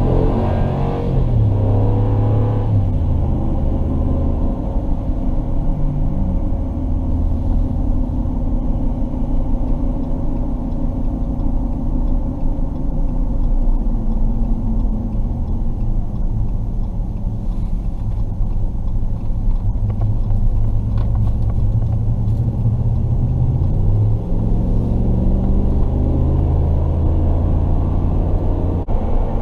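Ram pickup truck's engine and road noise heard from inside the cab, a steady low drone while driving in traffic. The engine note rises as the truck pulls away near the start and again about three-quarters of the way through.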